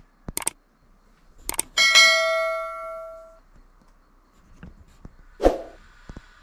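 Screen door being worked: a few sharp clicks, then a bell-like metallic ring that fades over about a second and a half. After that come a few knocks and one loud thump.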